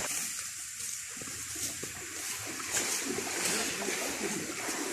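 Shallow stream water rushing and splashing as people wade through it.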